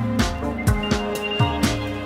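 Background music with a steady drum beat, about two beats a second, over held instrumental tones.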